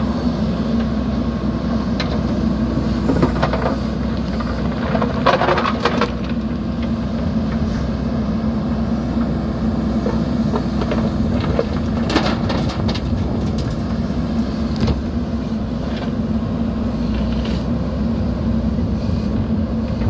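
JCB backhoe loader's diesel engine running steadily as the backhoe arm swings its bucket, with bursts of rattling clatter from stone and steel, the biggest about five seconds in and again around twelve seconds.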